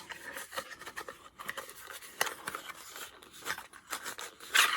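Packaging being handled while accessories are unboxed: plastic wrap and small parts rustling, crinkling and clicking in quick irregular bursts, with a louder crinkle near the end.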